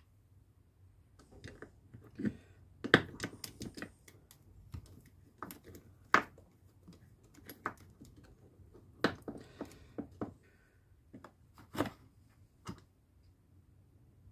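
Small parts and tools being handled on a workbench: about twenty light, irregular clicks and knocks.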